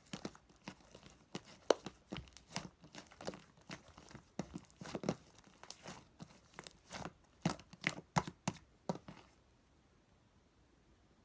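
Close-up crinkling and tearing, a rapid irregular run of sharp crackles that stops about nine seconds in.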